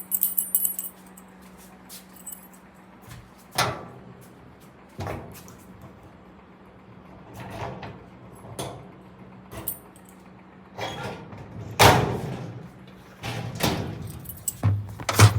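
A key and door lock being worked: keys jingle briefly at the start, then a string of separate metallic clicks and clunks of the key turning and the bolt and latch moving, spaced a second or more apart, the loudest clunk about twelve seconds in.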